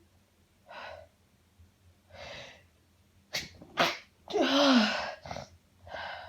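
A woman in a sneezing fit: two breathy, catching inhales build up, then several sneezes come in quick succession about three seconds in. The longest and loudest is a voiced 'achoo', followed by another breath.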